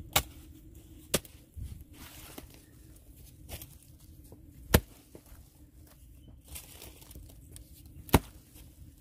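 A mattock striking hard, dry soil: four sharp thuds at uneven intervals, two about a second apart near the start, with soft rustling of dry leaves and earth in between.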